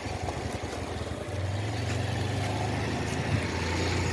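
Small TVS scooter engine running steadily while ridden with two people aboard, a low hum that grows louder about a second in, with road and wind noise.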